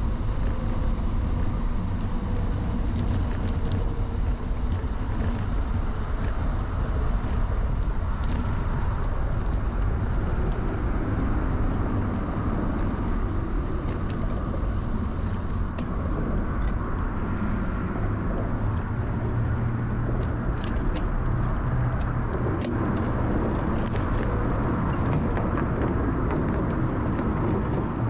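Riding sounds of an early-1970s Peugeot UJ-10 10-speed bicycle: a steady low rumble of tyres and wind on the microphone, with scattered light clicks and rattles.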